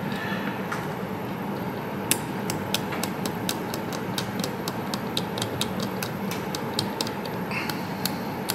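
A metal hand tool scraping and picking at a circuit board, clearing corrosion and glue from a damaged pad, making a run of sharp irregular ticks, about three or four a second, that begin about two seconds in. A steady background hum runs underneath.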